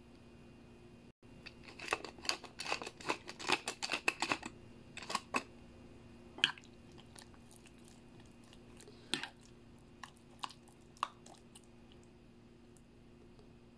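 Seasoning being added to a bowl of raw chicken in egg: a run of rapid, crackly clicks for about three seconds, then a few scattered single clicks and taps of a spoon against the bowl.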